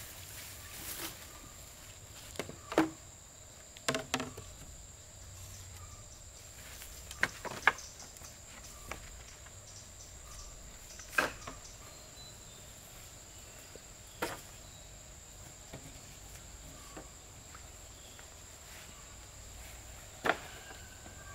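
Steady high-pitched drone of insects, with sharp short knocks every few seconds, about seven in all, the loudest about three seconds in and two close together near the middle.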